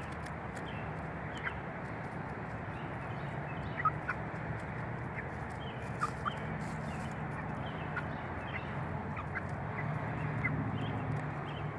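A flock of Cuckoo Marans chickens feeding, with many quick pecking clicks, short high chirps and a steady low murmur of clucking.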